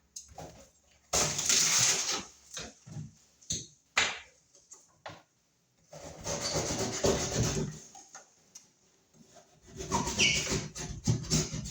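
Sheetrock being broken and pulled off a wall by hand. There are three stretches of crunching and crumbling, each one to two seconds long, with scattered knocks and clicks between them.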